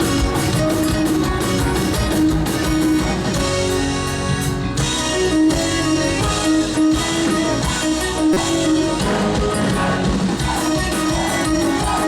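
Live rock band playing: guitars over a drum kit, with no singing heard.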